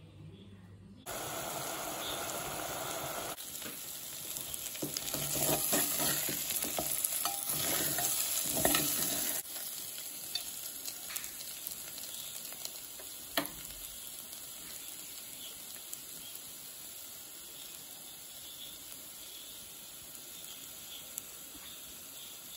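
Mutton pieces frying and sizzling in a pot while a steel spoon stirs and scrapes through them, as pepper mutton is dry-roasted. Loudest, with frequent scrapes, in the first half, then settling to a steadier, quieter sizzle after about nine seconds.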